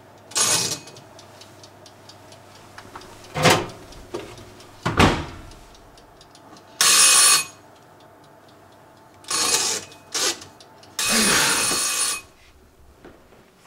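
Horror sound design: a run of loud, separate bursts of bell-like electric ringing, the longest about a second, broken up by two sudden low booms.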